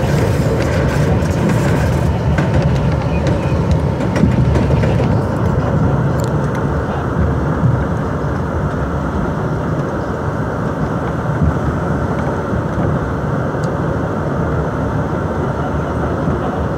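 R62A subway car running at speed on elevated track: a steady rumble of wheels on rail. The higher hiss drops away about five seconds in.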